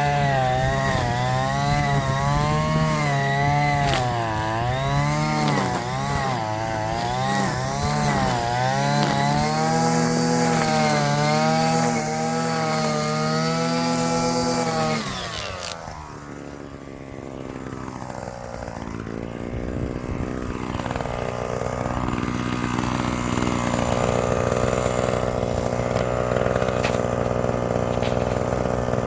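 Small two-stroke engine of a gas string trimmer running at high speed, its pitch wavering as it cuts. About halfway through, the engine drops to a lower speed, then revs up and down a few times.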